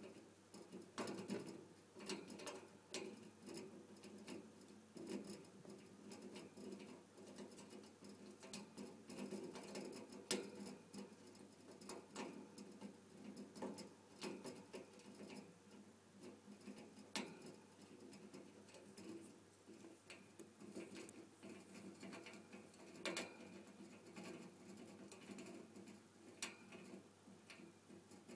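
A small pet parrot gnawing at a block on its perch with its beak: faint, irregular scratchy clicks and nibbling scrapes.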